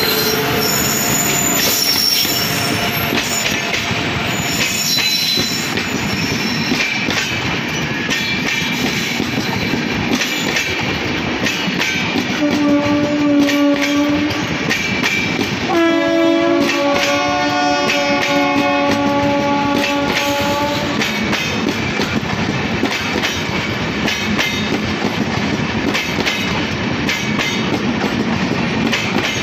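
Indian Railways LHB passenger coaches rolling past close by: a steady rush of wheels on rail with clickety-clack, and a high wheel squeal in the first few seconds. A train horn sounds briefly about 12 seconds in, then again for about five seconds from around 16 seconds.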